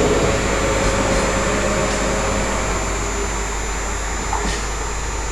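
Diesel railcar's engine running at a station platform: a steady low hum with mechanical noise and a higher tone that fades out about two and a half seconds in.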